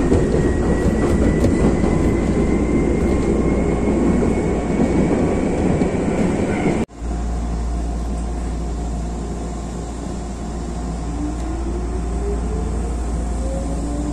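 Ride noise inside a Nagano Electric Railway 8500 series (ex-Tokyu) electric train running at speed, with a faint whine slowly rising in pitch. About seven seconds in, the sound cuts abruptly to the train standing at a station with a steady low hum. Near the end a rising traction-motor whine comes in as the train starts to pull away.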